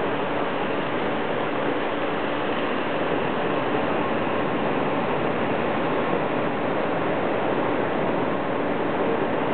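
A steady, even rush of water that does not change.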